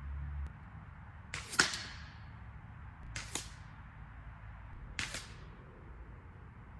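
Three short, sharp shots from a suppressed .177 air rifle, about a second and three-quarters apart, the first the loudest.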